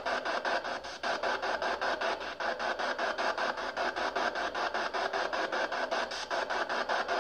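PSB7 spirit box sweeping through radio stations: a steady hiss of radio static chopped into rapid, even pulses, about eight a second.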